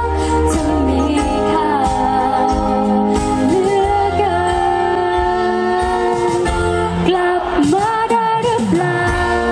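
Live band music with a woman singing the lead into a microphone, her voice holding and sliding between long notes over the band.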